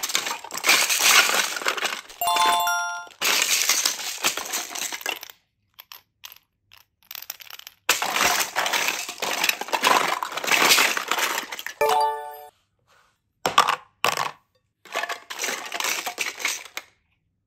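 Hard plastic toy fruit and squishy toys clattering and rattling against each other and the plastic basket as a hand rummages through them, in long stretches with short pauses. A short chiming sound effect rings twice, about two seconds in and again near twelve seconds.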